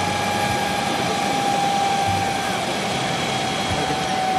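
Airbus EC135 helicopter's turbine engines running on the ground after landing: a steady rush with a high turbine whine that sinks slowly in pitch.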